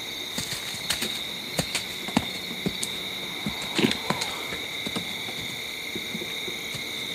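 Steady high-pitched insect chorus, with scattered soft clicks and knocks over it, the loudest a little under four seconds in.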